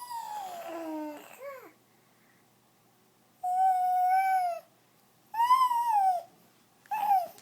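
Bird-like vocal calls from a voice, four in all: a long call that falls in pitch at the start, then three calls of about a second each. The second is held on one steady pitch; the last two rise and then fall.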